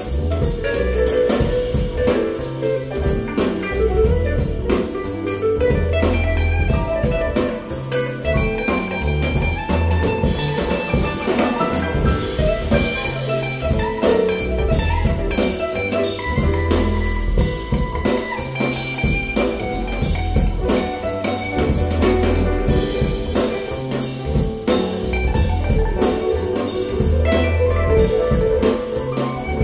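Live band music with drum kit, bass and guitar, played back through a pair of Musician Knight 1 bookshelf loudspeakers driven by an SMSL AO300 class D integrated amplifier. It runs at an even, loud level with a steady beat and a strong bass line.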